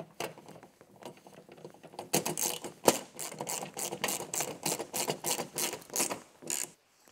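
Hand ratchet wrench clicking in quick repeated strokes as it tightens a bolt into aluminum. The clicks are faint at first, grow louder and quicker about two seconds in, and stop shortly before the end.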